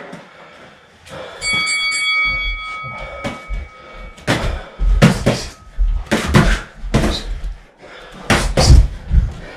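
A boxing round-timer bell rings once about a second and a half in, its ring fading over a few seconds. Then boxing gloves land punches in quick irregular thuds and smacks as the sparring starts, the heaviest near the end.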